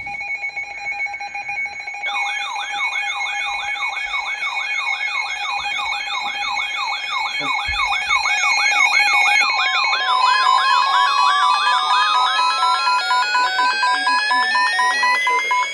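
Layered siren and alarm tones. A steady two-pitch tone comes first. About two seconds in, a warbling siren joins, swinging up and down in pitch about two and a half times a second. Near ten seconds in, a tone starts rising steadily in pitch over rapid beeping.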